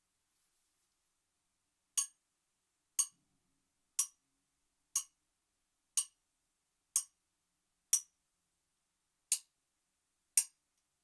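Chisel being struck: nine short, sharp strikes about a second apart, starting about two seconds in, with a slightly longer gap before the last two.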